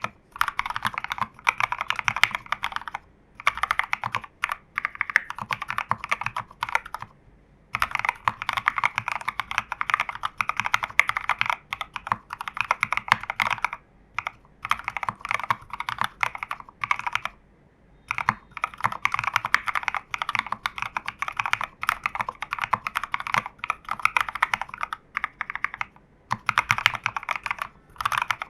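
Typing on a custom mechanical keyboard with reversed BCP switches (NK Cream housings, Cherry HB stems and springs, lubed) under SA profile keycaps, in a foam-damped, tape-modded TU40 plastic case. It is continuous fast keystroke clatter in bursts, with a few brief pauses.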